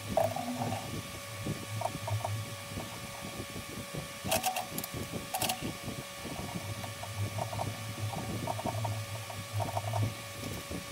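Threads being hand-tapped into a metal part held in a lathe chuck: a tap in a T-handle tap wrench turned by hand, giving scattered small clicks and short metallic scrapes, two of them sharper around four and five seconds in. A steady faint hum runs underneath.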